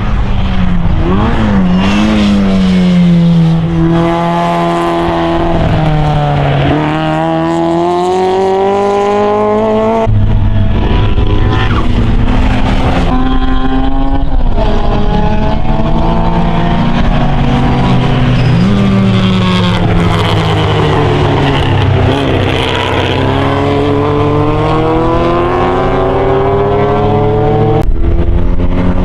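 Classic Mini race cars' four-cylinder engines working through a hairpin, one car after another. The revs drop as each car brakes and shifts down, then climb in steps through the gears as it accelerates away.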